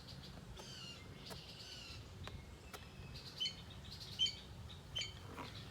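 Wild birds chirping, a string of short high calls mostly in the second half, with a few faint clicks over a low outdoor background.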